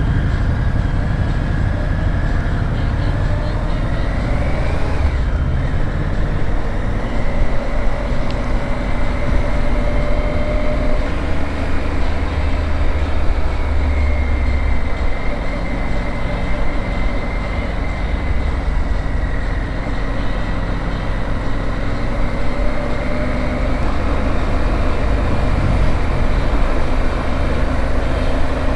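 Motorcycle running at road speed, a steady engine drone under wind and road noise. The revs rise and then drop about five seconds in, and the note then holds fairly steady.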